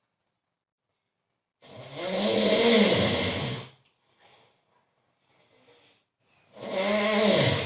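A man snoring very loudly: two long snores, each about two seconds, the first starting about a second and a half in and the second near the end, with faint breathing between.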